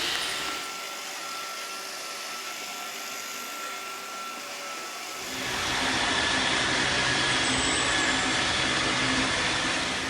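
Roomba robot vacuum running with a steady whirring hum, growing louder about five seconds in.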